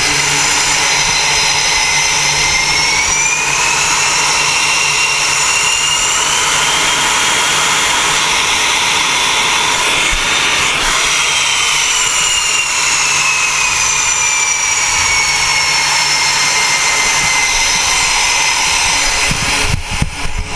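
Carrier aircraft turbine engines running at high power on the flight deck: a loud whine climbs in pitch over several seconds as an aircraft is run up for a catapult launch, peaks about ten seconds in with a short sharp crack, then slowly falls away. Near the end the noise breaks up into fluttering gusts on the microphone.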